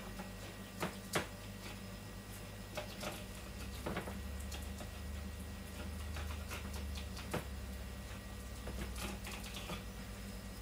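Kitchen knife cutting eel fillet, clicking and tapping against a wooden cutting board: scattered irregular clicks and knocks, the sharpest about a second in, over a steady low hum.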